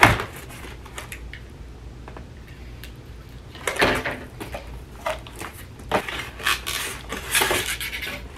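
Cardboard shipping box being opened by hand: a sharp knock as it starts, then from about three and a half seconds in, repeated bursts of cardboard flaps being torn and pulled open, with rustling.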